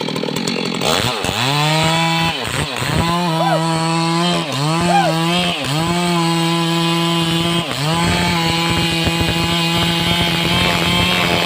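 Stihl MS 382 two-stroke chainsaw running at high revs while cutting a large log. Its pitch dips sharply and climbs back several times in the first half, then holds steady and high.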